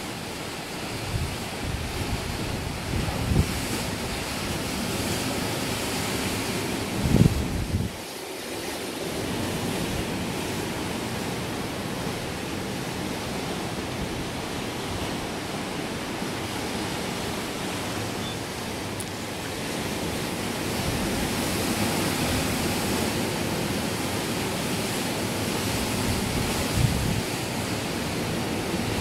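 Steady rush of wind and choppy open water heard from a ship's deck, with gusts of wind buffeting the microphone, strongest about seven seconds in and again near the end.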